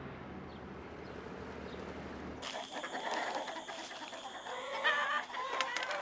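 A low steady hum, then from about two and a half seconds in, chickens clucking with short repeated calls.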